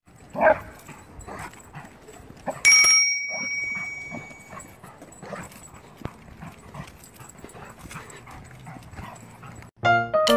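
A dog whining and yelping, with a loud cry about half a second in and fainter whimpers after. About three seconds in a sudden sound rings with a clear tone that fades over a second or so. Piano music starts just before the end.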